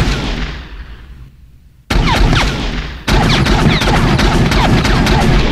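Desert Eagle Mark VII pistol film sound effect: rapid strings of gunshots. One string dies away, a new one starts about two seconds in and another about a second later, with short falling whines among the shots.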